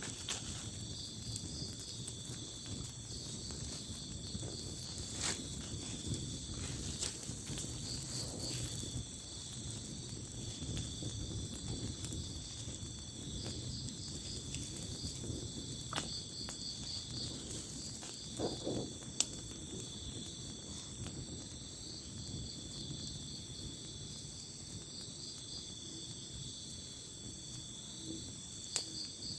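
Night insects, crickets and the like, chirring steadily in several high pitches, with a few sharp clicks scattered through.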